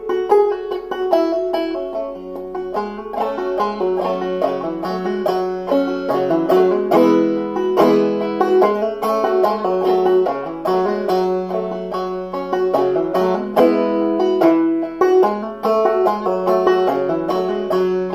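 Banjo played clawhammer style in open G minor tuning (gDGBbD), tuned about a semitone low: a steady, unbroken stream of plucked notes, with the high drone note coming back again and again.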